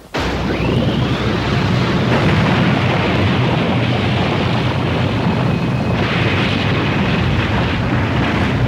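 Cartoon jet-engine sound effect for the Thunderhawk flying car: a loud, steady roar that starts suddenly, with a short rising whine as it begins.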